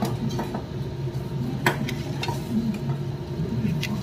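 Kitchen knife slicing a peeled cucumber on a steel plate, with several sharp clicks as the blade strikes the plate.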